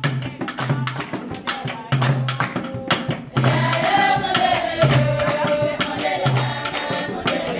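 A group of women singing in chorus to fast hand clapping, with a low drum stroke about every second and a half. The singing comes in strongly about three and a half seconds in.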